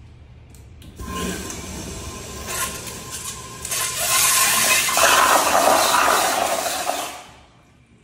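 Sloan flushometer toilet flushing: a rush of water starts suddenly about a second in, grows louder about halfway through, and cuts off sharply near the end as the valve shuts.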